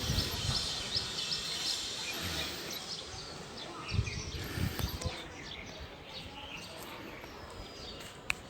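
Outdoor ambience with a bird chirping in a quick series of high notes, about four a second, that stops about a second in. A few low thuds and a sharp click near the end.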